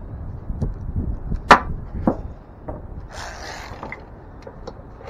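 Hand tools working on the alternator mounting bolt in the engine bay: dull knocks, a sharp click about a second and a half in and a lighter one just after, then a short scraping rustle and a few faint ticks as the bolt is tightened.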